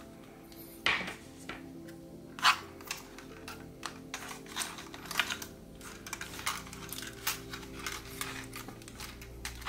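Sharp plastic clicks and clacks of a DJI Mini 4 Pro drone's folding arms and propellers being handled and swung open, irregular and frequent, the loudest about a second in and again at two and a half seconds.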